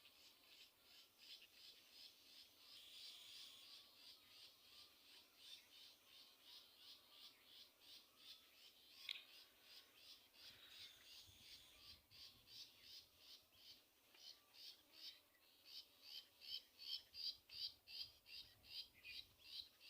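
Faint, regular series of short high chirps, about two to three a second, from a bird calling over and over, growing louder near the end.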